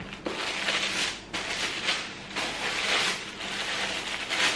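White tissue paper rustling and crinkling as it is unfolded inside a shoe box, in four or so bursts about a second apart.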